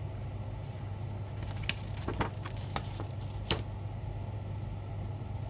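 A quick cluster of sharp clicks from keys being pressed on a Machenike K600 mechanical keyboard, the last one the loudest, over a steady low hum.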